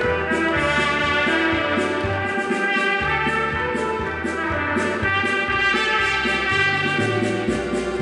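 Trumpet playing a melody live over a recorded backing track with a bass line and light percussion.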